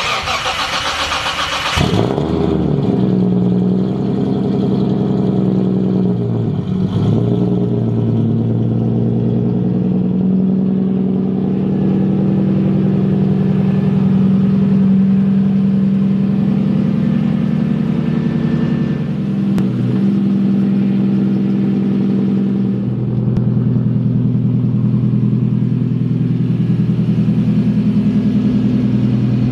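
Engine of an RB25 straight-six-swapped Nissan 240SX (S13) starting with a loud noisy burst for about two seconds, then idling steadily with a deep exhaust note. The idle dips and recovers twice.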